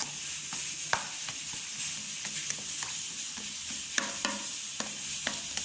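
Stirring a wet mixture of shredded toilet paper and dish detergent in a container, with a steady hiss and irregular sharp clicks of the utensil against the container.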